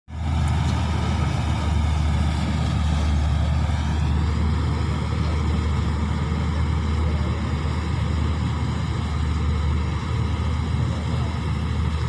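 Kuldeep combine harvester running steadily while harvesting rice: a constant engine and machinery drone with a strong low hum and a layer of steady higher whine.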